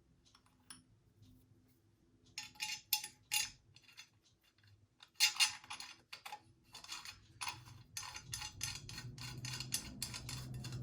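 Small metal parts clicking and clinking in irregular clusters as a spacer and screw are fitted into an RC car's exhaust pipe mount by hand.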